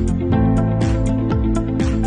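Background music with sustained chords and a regular beat of sharp percussive hits.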